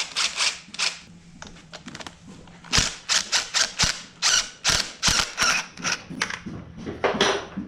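Sharp, uneven clicks and knocks of hand tools on metal, two or three a second.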